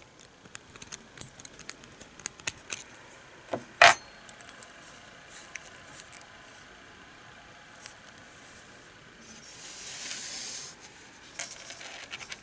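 Small metal parts and tools clicking and clinking on a work surface, with one louder knock about four seconds in and a short hiss a little before the end.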